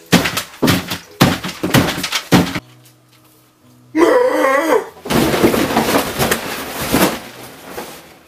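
Loud slapstick commotion: a string of harsh noisy bursts for the first couple of seconds, a wavering shouted cry about four seconds in, then several seconds of crashing and clattering as the dinner table and camera are knocked over. Quiet background music plays in the gaps.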